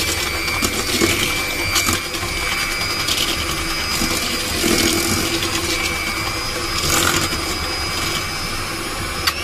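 National electric hand mixer running steadily, its beaters creaming butter, sugar and egg in a stainless steel bowl, with a steady high motor whine. The beaters knock against the bowl now and then.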